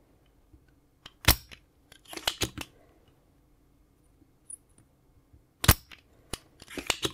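Spring-loaded solder sucker (desoldering pump) firing twice with a sharp snap, about a second in and again some four seconds later, each snap followed by a short run of clicks and rattle, as it pulls molten solder out of the board's holes.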